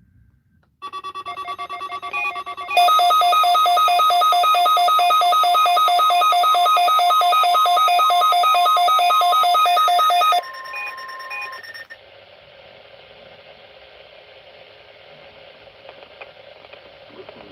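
Weather radio alert: a loud, rapid electronic beeping alarm over a steady warning tone. The beeping stops about ten seconds in, the steady tone a second or so later, leaving faint radio hiss.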